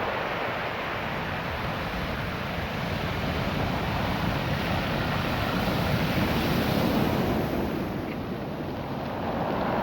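Ocean surf washing over a beach of small rounded cobbles, a continuous rushing wash that swells, eases near the end, then builds again.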